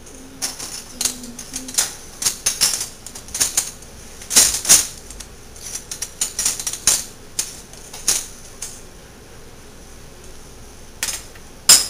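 Metal cutlery clinking and clattering as pieces are handled and dropped into a silverware drawer: irregular runs of sharp clinks, a pause of a couple of seconds, then a few more near the end.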